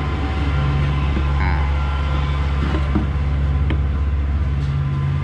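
A motor running steadily with a low, even drone, with a few light clicks as a stainless steel exhaust pipe is handled.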